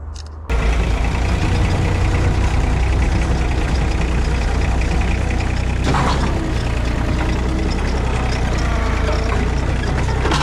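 Engine idling steadily, cutting in abruptly about half a second in.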